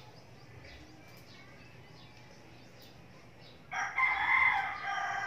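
A rooster crowing once: a single long, loud call that starts about three and a half seconds in, over a quiet background.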